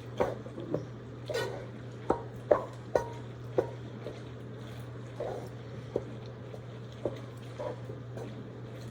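Irregular clinks and knocks of kitchen utensils and containers against a bowl, about a dozen over several seconds, over a steady low hum.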